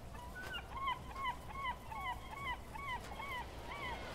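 A gull calling in a fast series of about a dozen short yelping notes, about three a second, each falling in pitch at its end, over a low steady rumble of surf.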